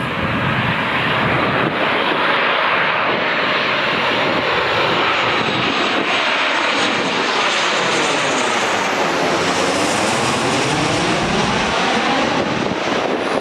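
Boeing 737-800 passing low overhead on final approach with gear down: a loud, steady rush of jet noise from its two CFM56-7B turbofans, with a sweeping, phasing shift in tone as it goes over and away.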